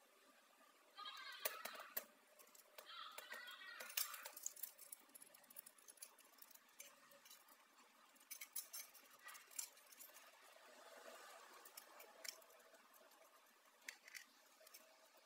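Faint clicks and two short bursts of scraping, like small parts or tools being handled.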